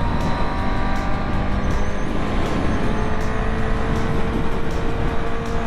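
Honda CB650R's inline-four engine running at a fairly steady highway speed, its pitch holding with only slight drift, over a heavy rush of wind noise.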